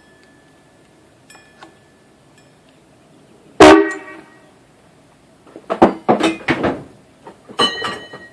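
Hadley air horn giving one short, very loud blast about a third of the way in. A couple of seconds later comes a run of short, sharp loud sounds.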